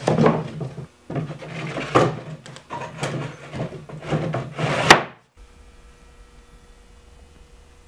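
Plywood panels knocking and scraping against each other as they are slid into the slots of a wooden brooder frame, several sharp knocks with the loudest a little before five seconds in. It cuts off abruptly about five seconds in, leaving faint room tone with a faint steady hum.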